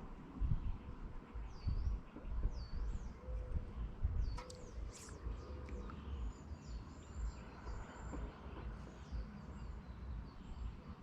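Small birds chirping and calling repeatedly in short swooping notes, over a steady low rumble of wind on the microphone.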